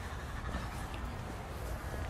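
Quiet outdoor background noise: a steady hiss over a low, uneven rumble, with no distinct events.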